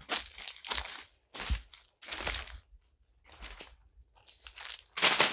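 Footsteps crunching on dry fallen leaves and loose soil, a step about every three-quarters of a second, the last one the loudest.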